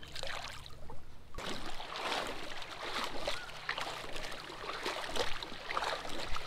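Shallow river water splashing and sloshing in an uneven run of swishes, starting about a second and a half in.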